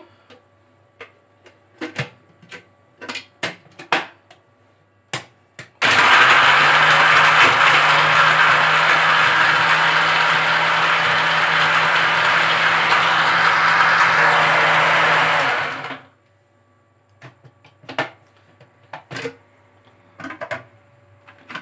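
Electric blender crushing ice with a mint and lemon mixture into a slush, starting suddenly and running steadily for about ten seconds before stopping. A few light clicks and knocks come before and after it.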